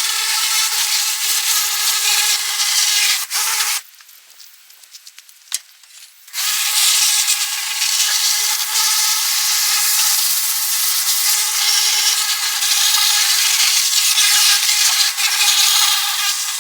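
An abrasive power tool running steadily against a surface with a harsh, scratchy noise. It stops about four seconds in and starts again after about two and a half seconds.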